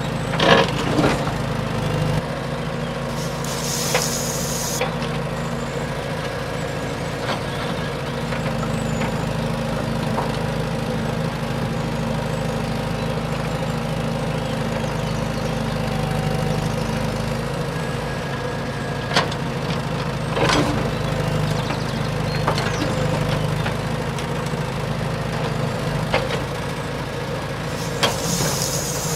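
A steady engine-like hum with occasional sharp knocks and clatter, and two short bursts of hiss, one a few seconds in and one near the end.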